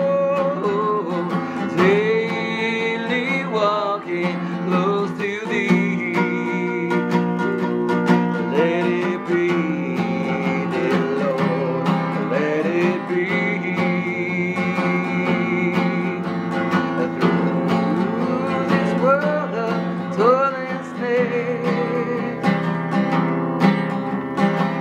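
Hymn music: acoustic guitar playing with a voice singing along.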